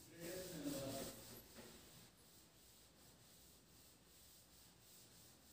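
A duster rubbed back and forth across a chalkboard, erasing chalk writing. The strokes are loudest in the first second and a half and then go on faintly.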